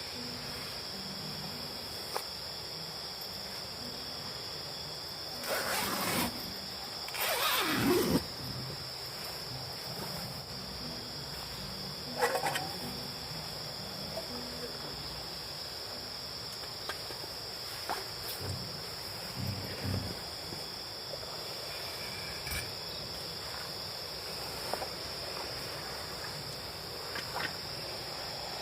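Crickets chirring steadily in one high, even tone. A few short, louder noises break in over it, the biggest two close together and a third a few seconds later.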